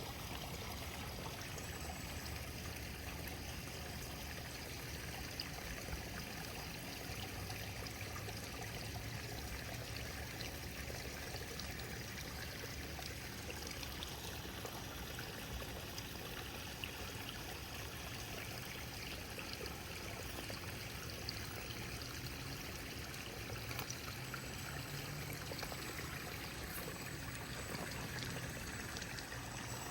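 Steady rush of running water, even throughout.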